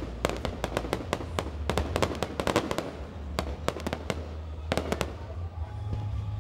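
Aerial fireworks bursting: rapid, irregular sharp bangs and cracks, several a second, thinning out about five seconds in, over a steady low rumble.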